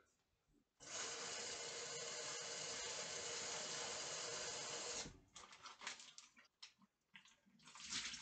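Kitchen tap running steadily for about four seconds, then cutting off, followed by irregular splashing and knocking as the rinse water is handled at the sink.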